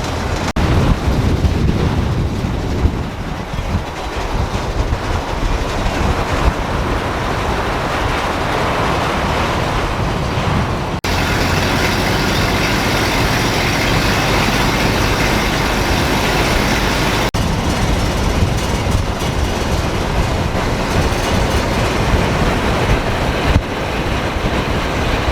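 A motor engine running steadily with a low rumble and a rushing noise over it. The sound changes character abruptly several times, about 11 and 17 seconds in and near the end.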